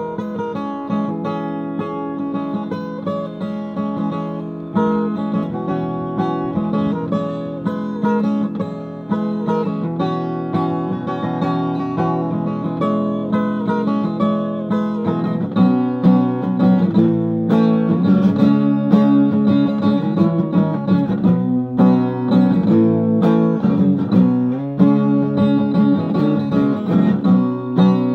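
Acoustic guitar played solo, growing louder and fuller about halfway through.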